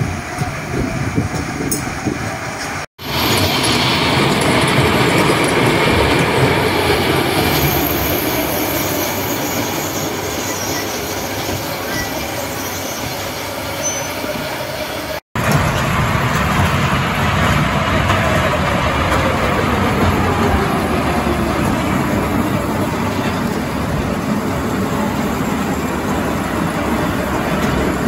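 Wacky Worm kiddie roller coaster train rolling along its steel track, a continuous rumble and rattle of wheels with a wavering wheel whine. The sound drops out abruptly twice, at about three and fifteen seconds in.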